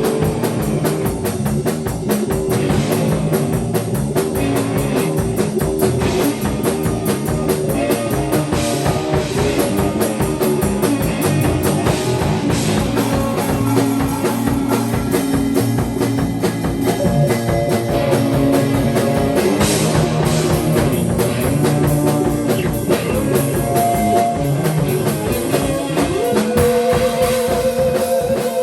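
Instrumental improvised rock jam: a drum kit keeps a steady busy beat under guitar. Near the end a note slides up and is held.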